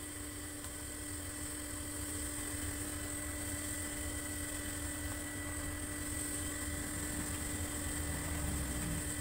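Coconut sap boiling hard in a large wok over a wood fire, being cooked down into palm sugar: a steady, unbroken low rumbling boil, with a faint steady high hum above it.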